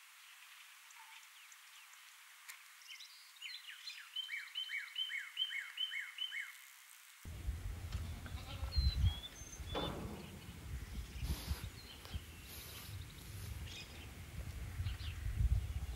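Llamas in a pen calling at close range, over wind rumble on the microphone. Before that, about seven seconds in, the sound changes abruptly from a quieter outdoor background, where a bird sings a short chirping phrase repeated about six times.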